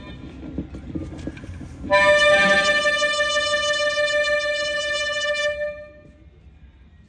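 Harmonica imitating a steam train's whistle: one long held chord of several notes, starting about two seconds in, lasting nearly four seconds, then fading away.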